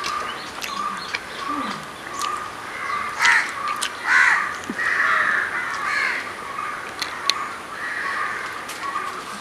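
Crows cawing over and over, several harsh calls overlapping, loudest about three and four seconds in, with a few sharp clicks among them.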